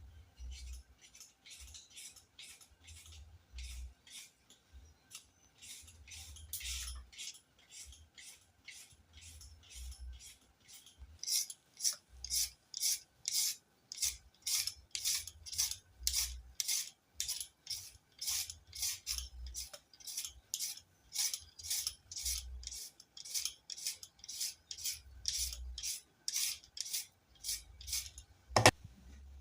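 Carrot being scraped in quick repeated rasping strokes with a kitchen tool, about two strokes a second, growing louder and steadier about eleven seconds in.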